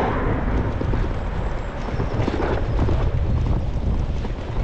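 Wind rushing over the microphone of a handlebar-mounted camera on a bicycle coasting downhill: a steady, low, rumbling noise.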